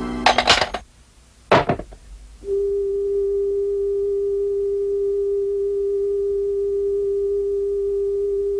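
Cartoon sound effects: two sharp clicks in the first two seconds, then a steady, single-pitched electronic tone that starts a couple of seconds in and holds unchanged.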